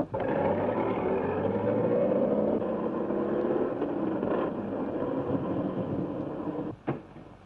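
Early-1930s car's engine running hard as the car drives off, its pitch sliding slowly down. The sound cuts off abruptly shortly before the end, followed by a sharp click.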